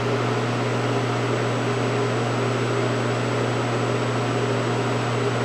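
Steady low electrical hum with an even fan-like whoosh from powered-up machinery, holding constant with no change.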